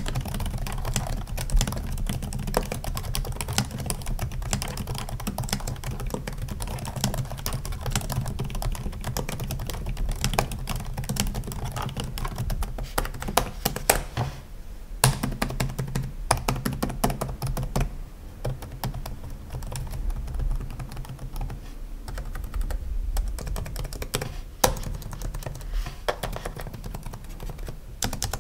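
Keyboard typing: fast, irregular clicking that pauses briefly about halfway, over a steady low hum.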